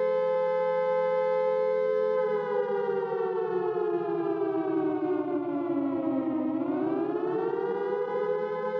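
Civil defense air-raid siren wailing: a steady tone that slowly falls in pitch for about four seconds, then rises back up and holds, over a steady low drone.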